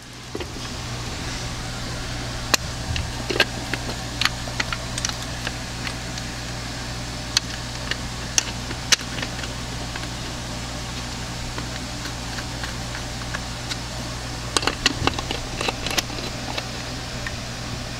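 Scattered light clicks and taps of a plastic distributor cap being seated and its hold-down screws turned with a screwdriver, with a small cluster of clicks near the end, over a steady low hum.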